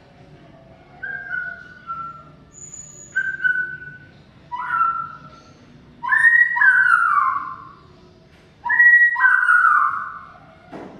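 Greater green leafbird (cucak ijo) singing a run of clear whistled phrases, several sliding down in pitch. The phrases grow longer and louder in the second half.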